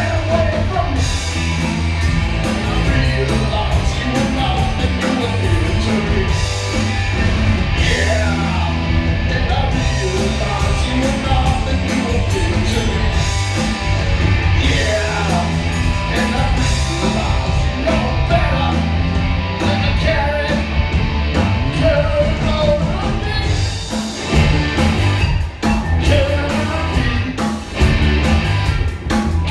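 Rock band playing live: electric guitar, bass guitar and drum kit in a fast, driving song, with a few short breaks in the sound near the end.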